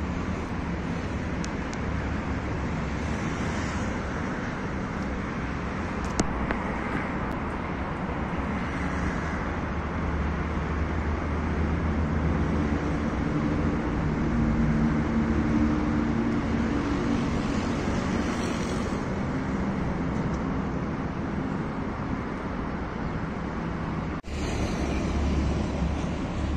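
Steady outdoor background noise: a low rumble with a hiss over it. It cuts out for an instant near the end.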